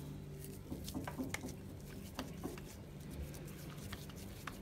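Hands squeezing and patting soft mashed potato filling into shape: faint wet squishes with small scattered clicks and taps, a few clustered about a second in, over a low steady hum.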